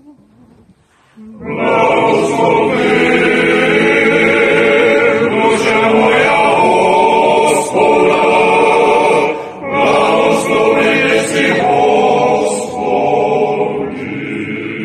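Men's choir singing unaccompanied, with a conductor leading; the singing starts about a second in, breaks briefly twice between phrases, and grows softer near the end.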